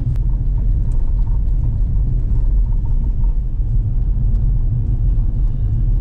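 Car driving along, heard from inside: a steady low rumble of engine and road noise.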